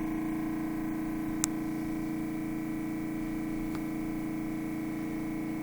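Refrigerator running with a really loud, steady hum: one strong low tone with several fainter tones stacked above it. A single short click about one and a half seconds in.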